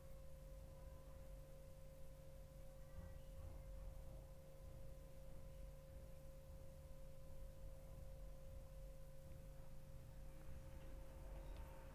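Near silence with a faint, steady, high-pitched tone over a low rumble.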